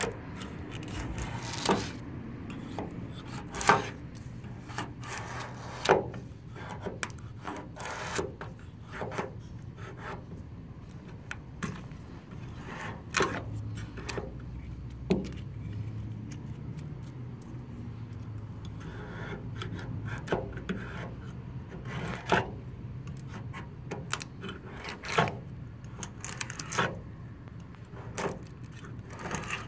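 Razor-blade scraper scraping paint off a car's steel body panel in short, sharp strokes at irregular intervals, over a low steady hum. The base coat is peeling off easily under the blade.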